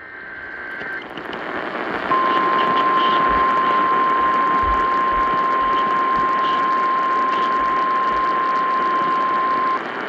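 AM radio static hiss from a Sangean weather-alert radio's speaker, swelling over the first couple of seconds. Then a single steady alert tone starts about two seconds in, holds for nearly eight seconds and cuts off sharply near the end. This is the National Weather Service's 1050 Hz warning alarm tone, rebroadcast over AM radio to announce a flash flood warning.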